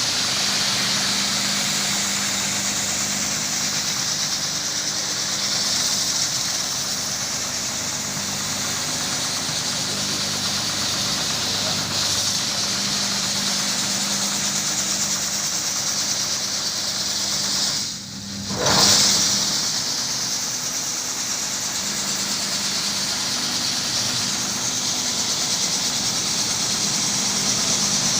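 Electric carpet-washing machine running steadily, a low motor hum under a strong hiss. About two-thirds of the way through the sound drops away sharply for a moment, then comes straight back louder.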